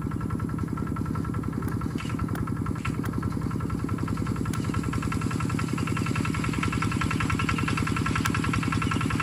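An engine running steadily at idle, with a fast, even throb.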